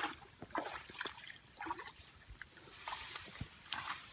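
Tall grass rustling and brushing close by, with scattered short clicks and crackles and a few wet, watery sounds.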